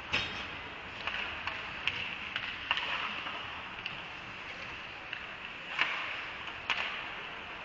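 Ice hockey play: a steady hiss of skates on the ice with scattered sharp clacks of sticks and puck, the loudest a little before six seconds in.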